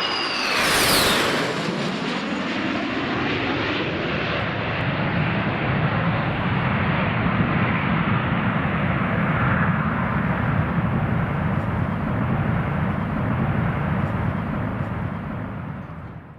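Jet airliner's engines at takeoff power passing by: a high whine slides down in pitch in the first second or two, then a steady loud roar with deep rumble that fades near the end.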